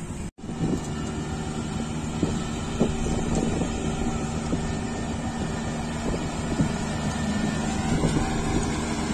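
Kubota DC-35 combine harvester's diesel engine running steadily as the machine moves on its rubber crawler tracks, with scattered knocks and clatter. A whine rises in pitch near the end.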